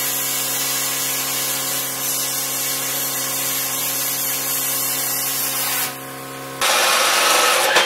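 Handheld plasma cutter cutting a small steel bracket: a steady hiss of arc and air over an electrical hum. About six and a half seconds in, the hum stops and a louder rush of air follows.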